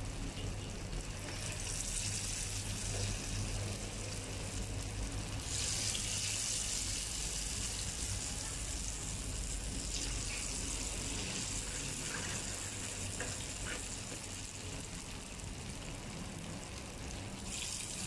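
Badjia fritters deep-frying in hot oil in an aluminium frying pan: a steady sizzle that grows louder about five and a half seconds in and eases off a few seconds later.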